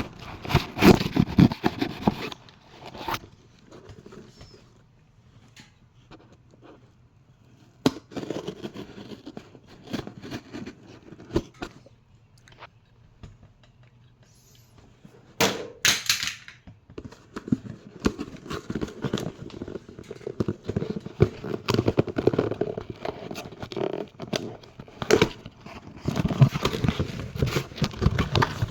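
Packaging being handled and opened: irregular crinkling, rustling and sharp clicks and knocks in clusters, with quieter pauses between them.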